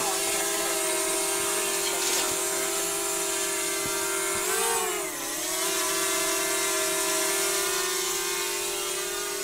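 Small camera drone hovering close by, its propellers giving a steady whine. About four and a half seconds in, the pitch swells up and then dips below its level as the drone manoeuvres, before settling again. It grows slightly fainter near the end.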